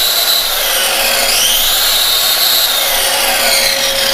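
Ryobi circular saw motor whining at speed. It dips about a second in, spins back up, then winds down as the trigger is let go. Under it, a 2 HP Armor All wet/dry shop vacuum runs with a steady hum.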